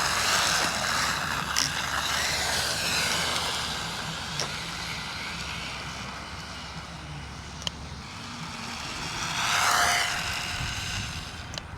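Small electric RC car's motor whining at speed with sliding pitch, loud at first and fading as it drives away, then swelling again as it passes back about nine seconds in. A few sharp ticks are heard along the way.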